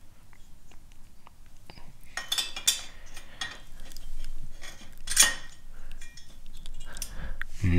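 Light metallic clinks and scrapes as an aluminium finned cylinder head is slid down over the steel cylinder studs of a Puch moped's two-stroke engine. A denser run of scraping comes about two to three seconds in, and a sharper clink just after five seconds.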